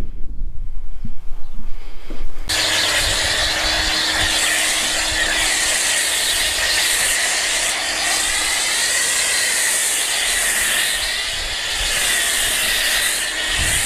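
Foam cannon on a Ryobi electric pressure washer spraying snow foam onto a pickup, starting suddenly about two and a half seconds in: a steady loud hiss of spray, with a low hum under it for the first few seconds. Before the spray starts there is low, uneven rumbling and knocking.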